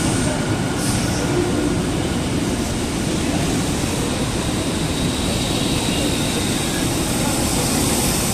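KRL Commuter Line electric commuter train moving along a station platform. Its cars and wheels make a steady, even running noise with no let-up.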